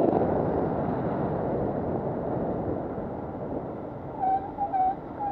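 Steady rush of wind and tyres on a wet road, loudest at first and easing off as the ride slows. From about four seconds in come several short, high squeals.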